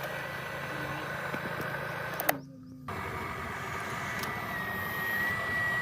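Small electric motors of a radio-controlled construction model running with a steady high whine and a low hum. After a click about two seconds in, the sound drops out for half a second, then returns with the whine a little louder.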